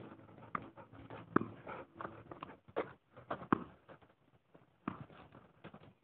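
German shorthaired pointer moving about, with a run of irregular clicks and knocks, a few of them louder.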